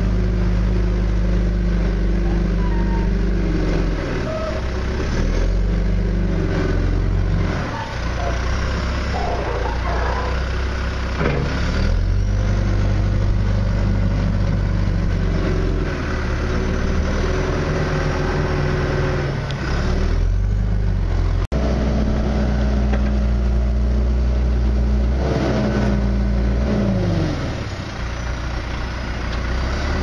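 John Deere 310SG backhoe's 4045T four-cylinder turbo diesel running, its engine speed rising and falling every few seconds, with a brief dropout about 21 seconds in.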